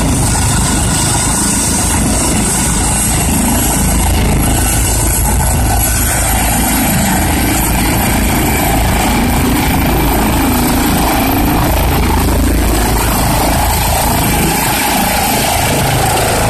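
Eurocopter EC135 air-ambulance helicopter running at a steady, loud level with its rotors turning on the ground, then lifting off near the end.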